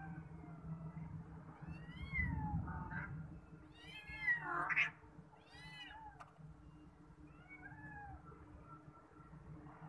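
Cats meowing: a string of short, high, rising-and-falling meows, with the loudest quick run of them about four to five seconds in and fainter ones after.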